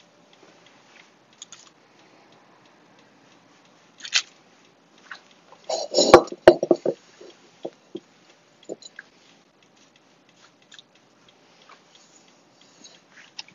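Hands scooping crumbly crumb topping from a mixing bowl and scattering it over a baking pan: soft crumbly rustles and small clicks. The loudest part is a cluster of knocks and clatter about six seconds in, with a few single knocks after.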